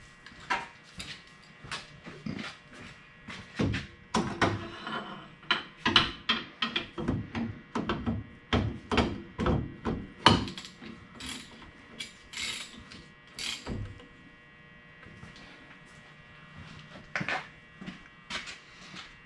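Hand work on a rear differential: a quick run of metal clicks, taps and knocks from tools and the dial indicator setup being handled, thinning out to a few scattered clicks after about fourteen seconds, over a faint steady hum.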